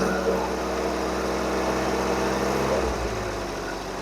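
Austin-Healey Bugeye Sprite's 948 cc A-series four-cylinder engine held steadily at raised revs, then easing back down toward idle about three seconds in.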